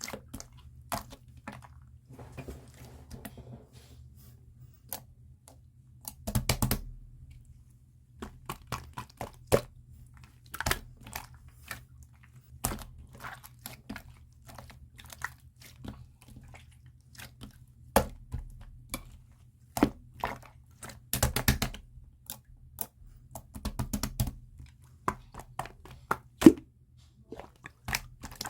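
Blue clear slime being squeezed and pressed by hand, giving sharp irregular clicks and pops, with a few louder bursts of crackling.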